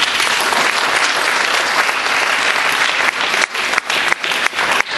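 Audience applauding, a dense clapping that thins out into scattered claps from about three seconds in.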